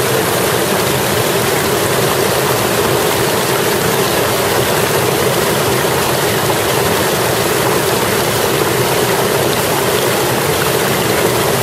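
Mountain stream rushing over and between boulders: a steady, loud wash of running water.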